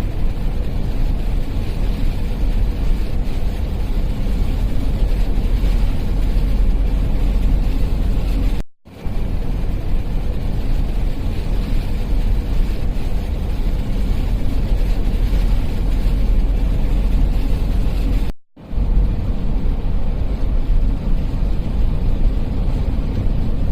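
Steady road and engine noise of a 2018 Chevy Tahoe being driven, heaviest in the low rumble, cut off abruptly and resuming twice.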